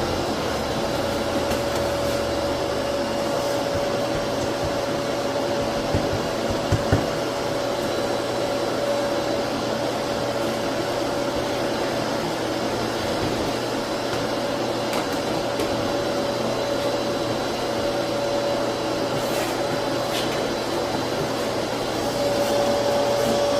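Dust extractor (shop vacuum) running steadily with a constant whine, with a few low knocks about six to seven seconds in.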